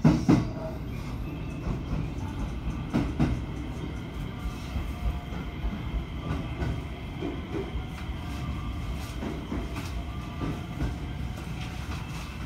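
Train running slowly through a station, heard from inside the front car: a steady low rumble of wheels on rail with irregular clacks and knocks as the wheels cross rail joints and points, the loudest right at the start and another about three seconds in.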